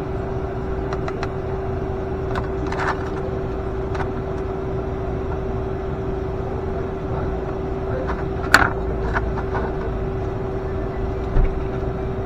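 A steady mechanical hum with one constant tone, overlaid by a few light clicks and knocks of things being handled. One sharp knock comes about two-thirds of the way through, and a smaller one near the end.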